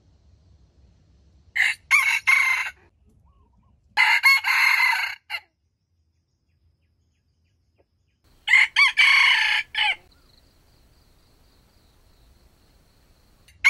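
Wild red junglefowl rooster crowing three times, a few seconds apart. Each crow is short and clipped, about a second long.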